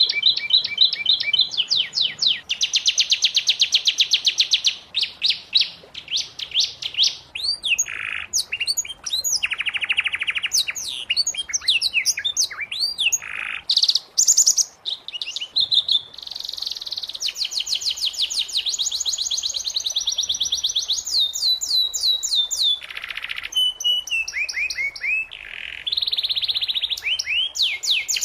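Domestic canary singing a continuous song of fast trills and rolling runs of repeated notes, switching to a new phrase every second or two.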